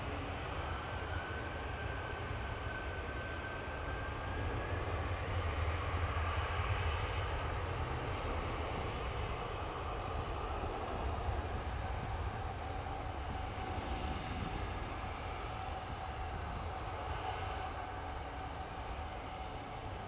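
Jet airliner engines running: a steady low rumble with thin whining tones that drift slowly in pitch, a higher whine joining about halfway through.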